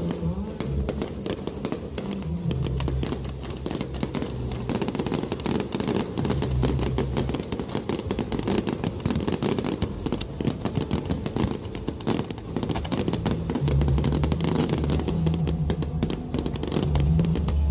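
Fireworks bursting and crackling in quick, dense succession, over music with a steady bass line that swells near the end.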